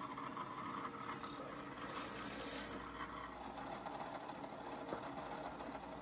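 Bench drill press running as its bit bores holes through a solid Corian block, with a brief louder hiss about two seconds in.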